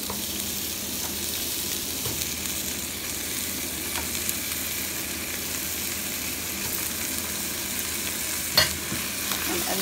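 Chopped onions and raw chicken pieces sizzling in hot oil in a pot, a steady hiss with a few light taps. About a second before the end comes one sharp knock of the spatula against the pot.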